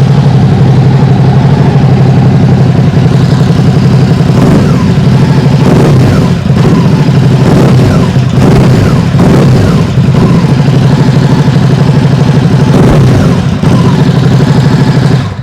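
Ducati Hypermotard 950 SP's 937 cc L-twin, fitted with Austin Racing slip-on exhausts, idling loudly and being revved with repeated throttle blips, several in the middle and another near the end. Picked up from up near the rider rather than from behind the exhaust.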